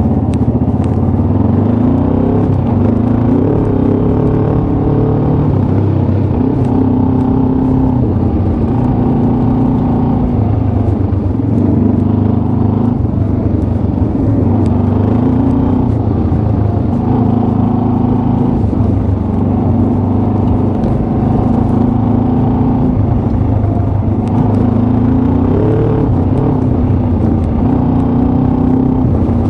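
1991 Kawasaki KLE500's parallel-twin engine running under way. Its pitch climbs and drops back every couple of seconds as the bike accelerates and changes gear.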